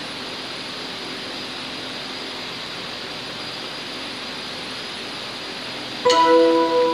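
Steady hiss for about six seconds, then an electronic keyboard comes in with a sustained chord, the opening of a worship song.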